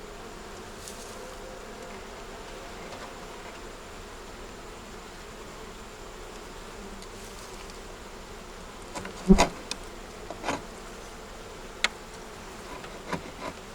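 Honey bees buzzing in a steady hum around an open hive. Several sharp knocks or clicks come in the second half, the loudest about nine seconds in.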